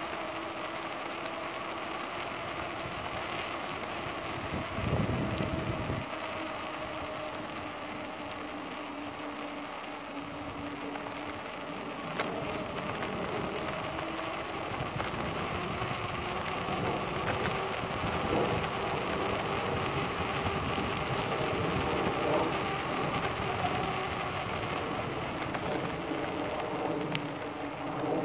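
Bicycle rolling along a paved trail: a steady rushing hiss of tyres on pavement and wind on the handlebar-mounted camera's microphone, with a faint steady hum under it. A brief low rumble of wind buffeting the microphone about five seconds in, and the noise grows a little louder about twelve seconds in.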